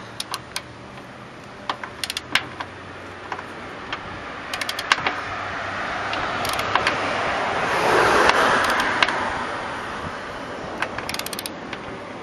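Ratcheting torque wrench clicking in short irregular bursts as a hood-strut mounting stud is tightened. A passing vehicle swells up and fades away, loudest about two-thirds of the way in.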